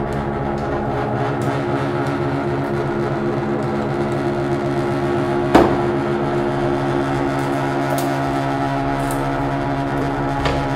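Homemade synthesizer sounding a steady, buzzy electronic drone of several held tones, with one sharp click about five and a half seconds in.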